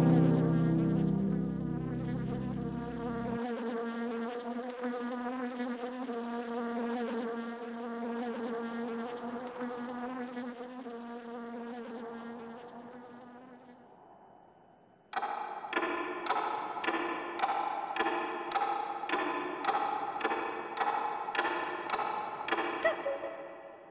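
Buzzing of a cartoon fly: a steady droning buzz that slowly fades away. About 15 seconds in, a buzz starts again suddenly and pulses about twice a second until near the end.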